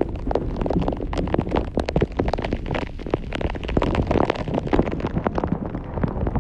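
Heavy rain in a thunderstorm, with big drops striking close by as dense, irregular ticks many times a second, over a low rumble of wind on the microphone.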